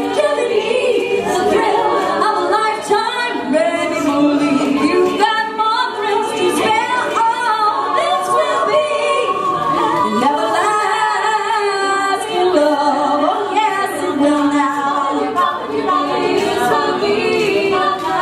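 All-female a cappella group singing unaccompanied, a lead voice at the microphone over the group's backing vocals.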